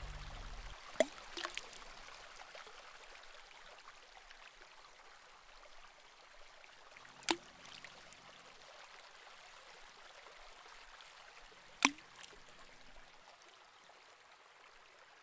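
Faint, steady rush of water from the show's fountain jets, broken by three sharp cracks: about a second in, around seven seconds and near twelve seconds. The music fades out in the first second.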